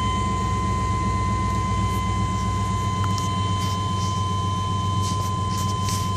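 Pickup truck engine idling just after a cold start, heard from inside the cab: a steady low rumble with a thin, steady high whine over it.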